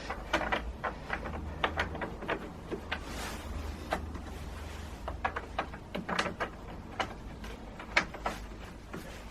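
Oak strips of a bench track being handled and fitted together on a wooden workbench: irregular light clicks and knocks, over a low steady hum.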